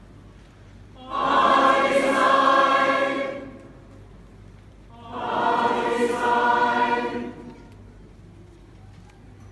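A mass choir of about 800 voices singing two held chords, each lasting about two seconds, with a pause of about a second and a half between them.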